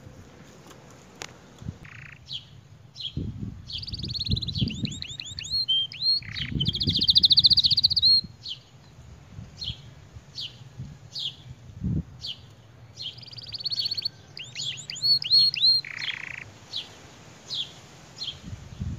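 Domestic canary singing: short high chirps about once a second, broken by rolling trilled phrases. The loudest is a fast buzzing trill about seven seconds in. A low rumble sits under the song at times.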